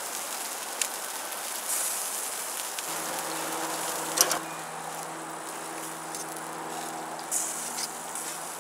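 Meatballs and sausages sizzling on a charcoal grill, with a few sharp clicks of metal tongs on the grate. A low steady hum comes in about three seconds in.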